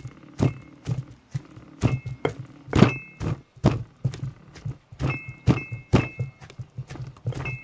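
Stone pestle pounding chopped herbs in a heavy stone mortar: repeated dull thuds at about two a second.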